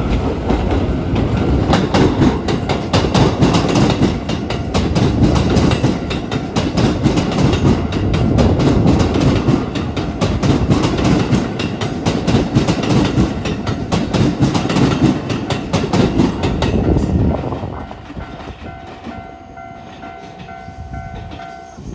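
Keikyu New 1000 series electric train passing over a level crossing, its wheels clicking rapidly over the rail joints; the passing is loud for about seventeen seconds, then fades as the train moves away. Near the end, the crossing's warning bell is heard ringing in a steady repeating pattern.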